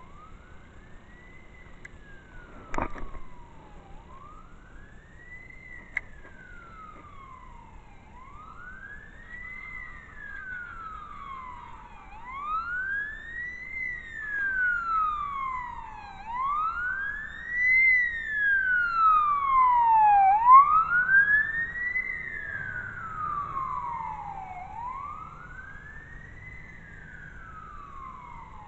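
Distant emergency-vehicle siren wailing, a slow rise and fall repeating about every four seconds, growing louder toward the middle and then fading. A single sharp knock comes about three seconds in.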